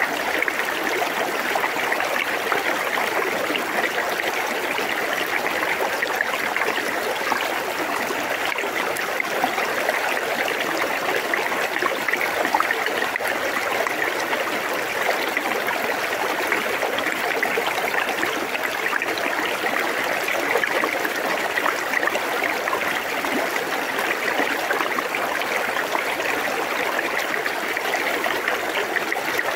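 River current trickling and splashing around stones at the water's edge, a steady, even flow with no pauses.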